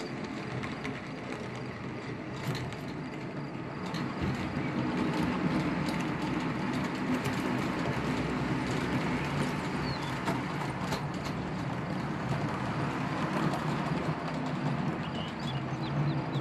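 HO-scale narrow-gauge model train (BEMO Rhaetian Railway models) running along the track: a steady rumble of motor and wheels with scattered clicks over the rails, growing louder about four seconds in.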